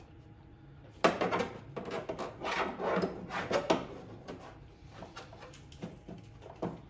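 Parts and tools being handled at the mower's fuel line: rubbing, scraping and a quick run of light knocks and clicks, busiest from about a second in until the middle, then a few scattered clicks.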